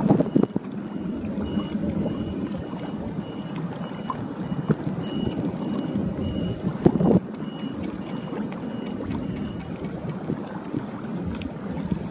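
Wind buffeting the microphone over a steady low rumble of harbour noise. A short high electronic beep repeats about three times a second and stops near the end, and there is a brief thump about seven seconds in.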